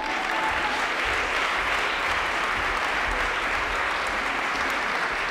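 Theatre audience applauding steadily at the end of a cabaret song.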